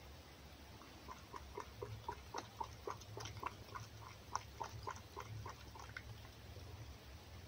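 A fox eating egg from a plate: quiet, wet lapping and smacking, about three or four a second.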